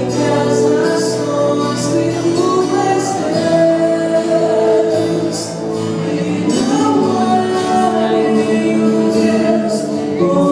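Live gospel band playing with a singer during a sound check, sustained sung notes over the instruments.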